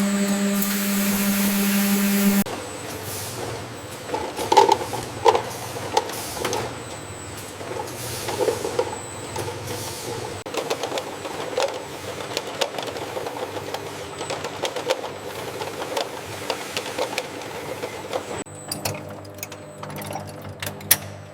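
Factory machinery: a steady mechanical hum for the first two seconds or so, then irregular clattering and clicking of machines running.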